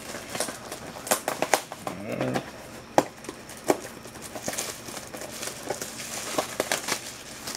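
Plastic wrapping crinkling and cardboard being handled as a sealed box of hockey trading cards is opened, with many quick clicks and rustles.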